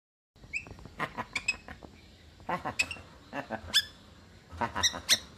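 Caged Javan myna calling in about five short bursts of rasping notes and sharp whistles, roughly a second apart.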